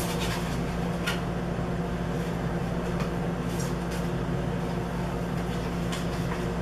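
A steady low hum runs throughout, with a few faint crackles of a rolled paper print being unrolled and handled.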